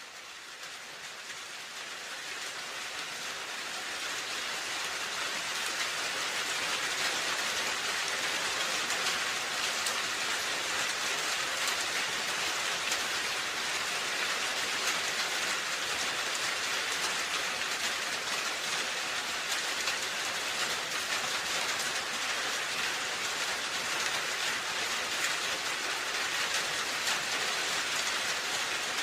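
Rain falling on a roof, a dense steady patter of drops. It fades in from quiet over the first few seconds, then holds even.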